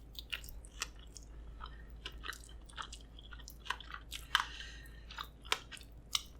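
Close-miked chewing: irregular wet mouth clicks and smacks with a little crunch, the loudest smacks a little past the middle.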